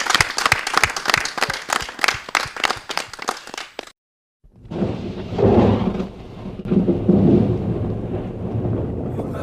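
Studio audience clapping, cut off suddenly about four seconds in. After half a second of silence, a low rumble swells up and carries on.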